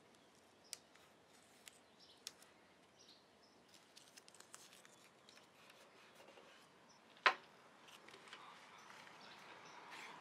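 Faint handling sounds of blue painter's tape being pulled and pressed down by hand, with a few small clicks. One sharp knock comes about seven seconds in, as a wooden caul and bar clamp are brought onto the work.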